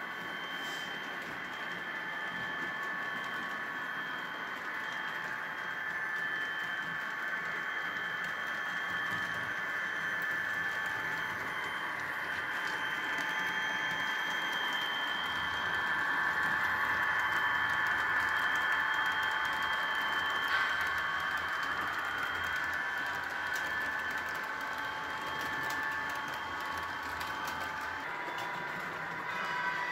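Model train running on the layout's track: a steady motor whine with fine clicking from the wheels over the rails, growing louder around the middle and easing off again.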